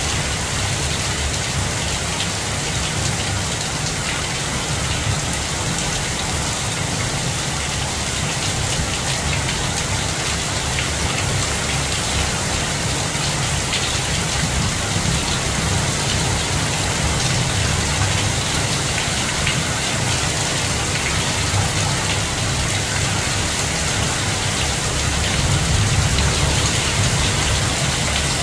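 Heavy rain falling steadily: a dense hiss of countless drops with a low rumble underneath.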